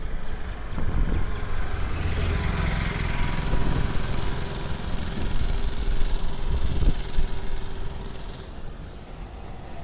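Vehicle noise: a steady low rumble with a few knocks, and a passing whoosh that swells about two seconds in and fades away near the end.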